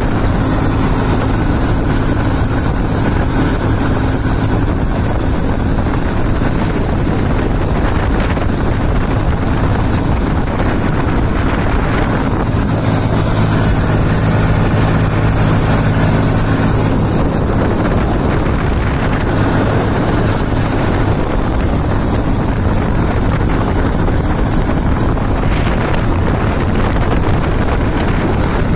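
Massey Ferguson 241 DI tractor's three-cylinder diesel engine running steadily as the tractor drives along the road, heard from the driver's seat with wind noise on the microphone.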